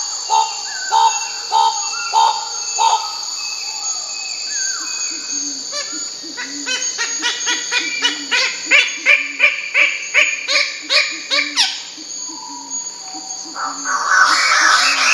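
Bird-of-paradise calls: short notes repeated about twice a second at first, then, from about six seconds in, a fast series of notes that speeds up and climbs, ending in a sharp upswept note. A louder call with several tones starts near the end. A steady high insect drone runs underneath.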